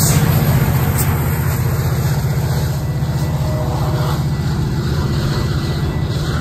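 Train passing with a loud, steady low rumble.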